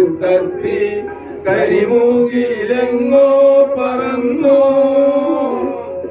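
A group of men singing a song together, holding long drawn-out notes.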